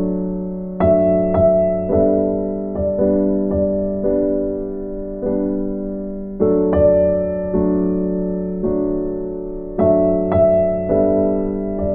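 Background music: a slow, gentle piano piece, soft chords struck every second or so and left to ring out.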